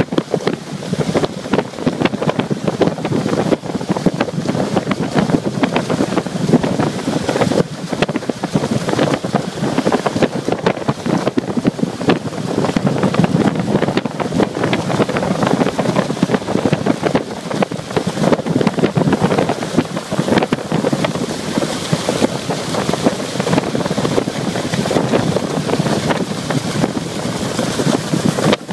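Wind buffeting the microphone over a steady rush of water and spray from a small outboard-powered centre-console boat running at speed.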